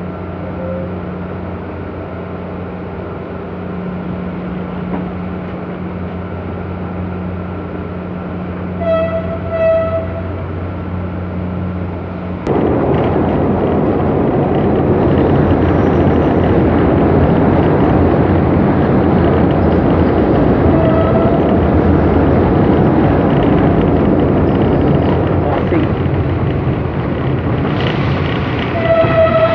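Philippine National Railways commuter train running, heard from inside a carriage: a steady rumble that suddenly gets louder about twelve seconds in. The train horn sounds briefly about nine seconds in and again near the end.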